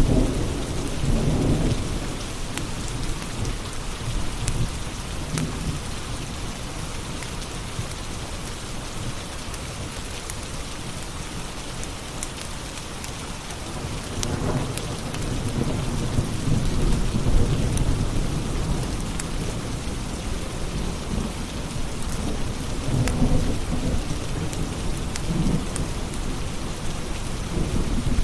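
Steady heavy rain with rolling thunder that rumbles up three times: near the start, around the middle and late on. Sharp little pops of a crackling wood fire are scattered through it.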